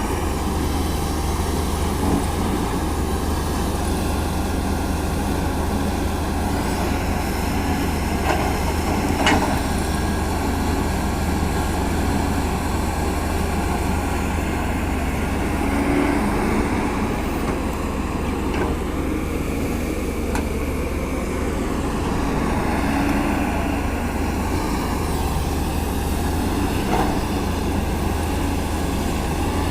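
CAT 320D excavator's six-cylinder diesel engine running steadily at work, with a few short sharp knocks, one about a third of the way in and one near the end.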